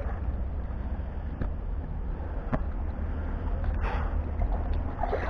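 Wind buffeting the camera's microphone in a steady low rumble, with a few short knocks and rustles as a wet rope is hauled in hand over hand.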